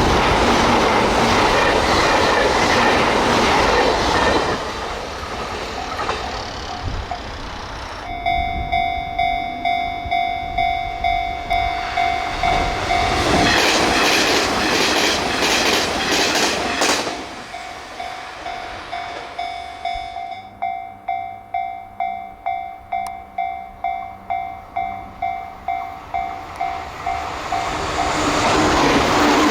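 Electric trains passing at speed, wheels clacking over the rail joints. A Japanese level-crossing warning bell rings over them in an even electronic ding-ding, at about one and a half to two strikes a second. The bell comes in suddenly about a quarter of the way through, and a second crossing bell with a faster beat takes over past the middle.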